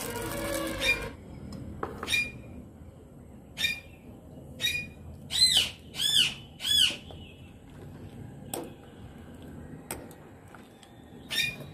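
Background music for about the first second, then a bird calling repeatedly: about eight short, harsh, arching calls, with three loud ones in quick succession near the middle.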